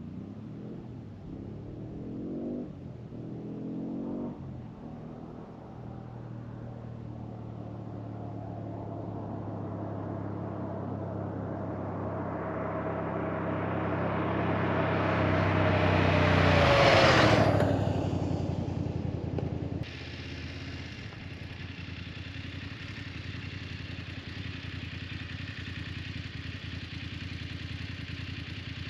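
BMW F 850 GS motorcycle's parallel-twin engine revving up through the gears in the distance, then getting steadily louder as it approaches and passes close by about 17 seconds in, its pitch dropping sharply as it goes away. About 20 seconds in the sound cuts abruptly to a motorcycle engine idling steadily.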